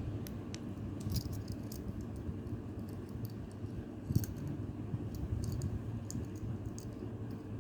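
Keychain being handled: scattered small metallic clicks and jingles, in clusters about a second in, around four seconds in and again a little later, over a steady low rumble.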